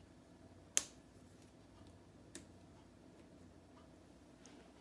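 Two sharp clicks of plastic K'nex connectors snapping onto a rod, a louder one just under a second in and a fainter one about a second and a half later.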